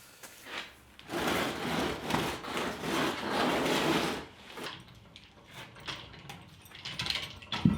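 A rough scraping noise lasting about three seconds, followed by a few light clicks and a knock near the end.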